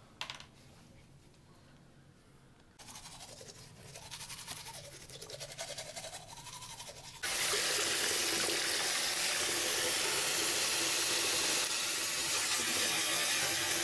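A sharp click near the start. About three seconds in, a toothbrush starts scrubbing teeth in quick strokes. From about seven seconds, a sink tap runs water steadily and loudly into the basin.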